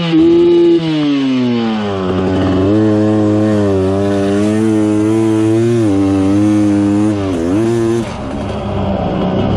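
Dirt bike engine under throttle as the bike is ridden through shallow water and up onto the sand. Its note falls in pitch over the first couple of seconds, then holds with small rises and falls, dips sharply and recovers about seven seconds in, and drops away into a rushing noise near the end.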